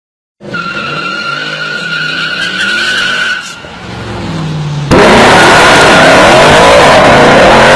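Mercedes C63 AMG engine and exhaust running with a steady whine, then about five seconds in a sudden jump to a very loud full-throttle acceleration.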